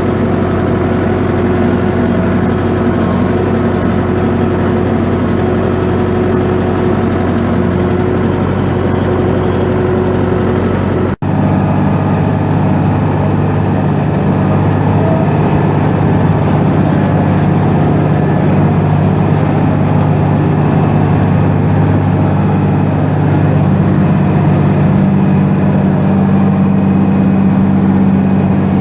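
A tractor engine running steadily under load, with a sudden cut about eleven seconds in to another steady engine sound.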